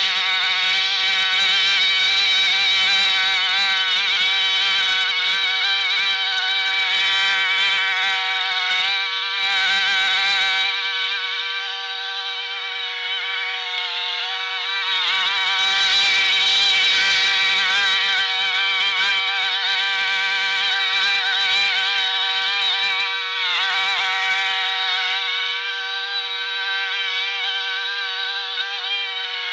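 Push lawn mower's engine running while cutting grass, with the recording sped up so it comes out as a high, buzzing drone like a bee. Its pitch wavers up and down continuously.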